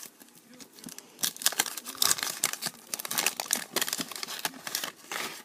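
Waxed-paper wrapper of a 1988 Topps football wax pack being torn open and crinkled by hand, a dense run of crackling that starts about a second in.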